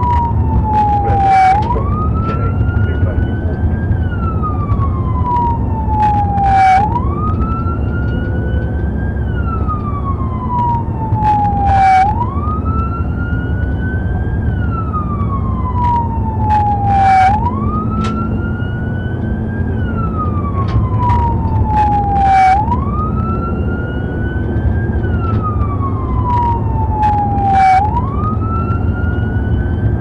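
Police car siren on a slow wail: the pitch jumps up quickly, keeps climbing slowly, then slides down slowly, about one cycle every five seconds, with a short burst of noise each time it bottoms out. It sounds over the steady engine and road noise of the patrol car as it drives.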